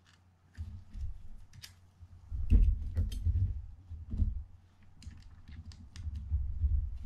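Handling noise from the parts of a Penn Senator 114H fishing reel being fitted by hand: scattered small metal clicks and light taps, with dull bumps against the work table, busiest a few seconds in and again near the end.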